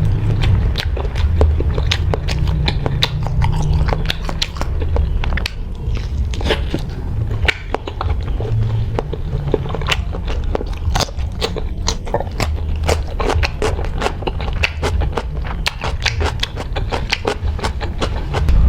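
Close-miked chewing and biting of fried sausage: a dense, irregular run of crisp mouth clicks and smacks, over a steady low hum.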